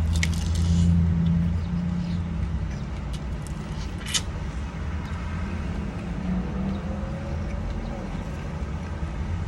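Steady low motor rumble, with a few short crackles and a sharp click about four seconds in.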